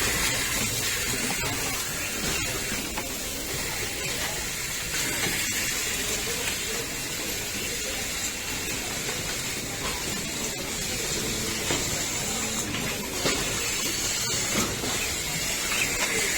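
Steady hiss of factory-floor background noise with a few faint clicks.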